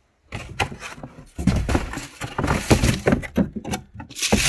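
Shoes being handled and taken out of their cardboard box: a run of irregular knocks, thumps and rustling.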